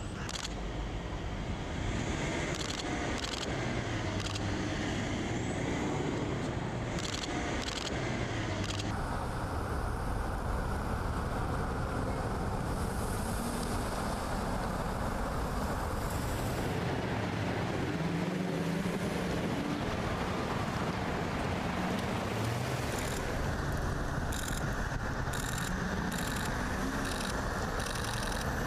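Cars driving along a city road: a steady rush of engine and tyre noise as the sedans pass.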